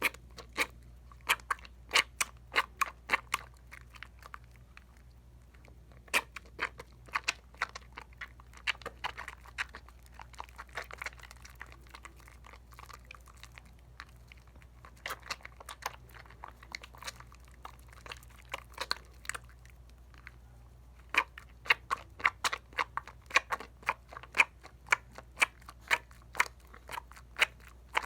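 A bar of Dial coconut soap being lathered in wet hands: the foam gives off rapid, irregular sharp clicks and pops in dense bursts. There are brief lulls about 4, 13 and 20 seconds in.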